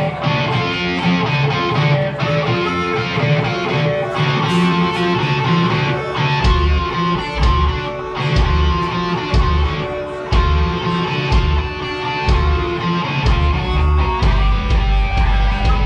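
Live band playing an instrumental passage: electric guitar over drums, with deep bass notes coming in strongly about six and a half seconds in.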